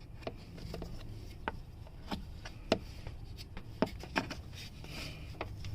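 Scattered sharp clicks and light rubbing from hands working an oxygen sensor's wire and its plastic clips into place, about eight clicks in all, with the loudest near the middle.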